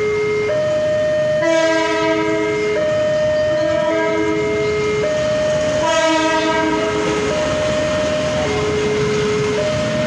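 Level-crossing warning siren sounding a two-tone alternating wail that switches pitch about once a second. Over it, a diesel locomotive's horn blasts twice, once about a second and a half in and again about six seconds in, each blast just over a second long, as the train comes through the crossing.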